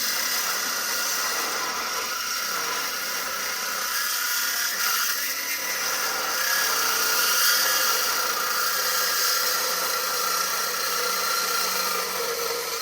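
Handheld angle grinder running steadily against 8-inch steel pipe, a continuous high hiss and whine as the pipe is cleaned up for welding.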